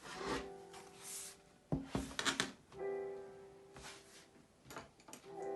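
Background music with piano-like keyboard chords, each held about a second, and a few sharp clicks about two seconds in.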